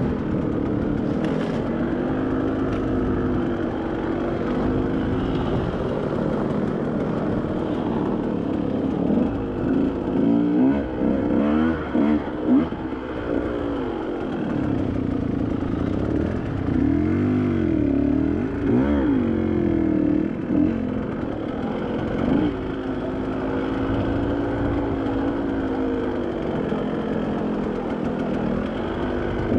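Off-road vehicle engine running on a trail, its pitch rising and falling several times through the middle as the throttle is worked.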